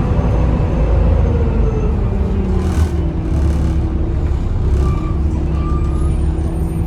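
Volvo B7TL double-decker bus heard from on board, its engine giving a steady low drone. A whine falls in pitch over the first few seconds as the bus slows, then holds level. A few short hisses of air come in between.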